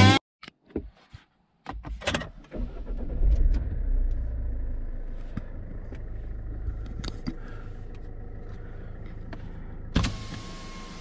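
Car moving slowly along a rough dirt track, heard from inside the cabin: a low engine and tyre rumble with scattered knocks and rattles over the bumps. It sets in about two seconds in after a few clicks, is loudest early on, then settles, and turns hissier near the end.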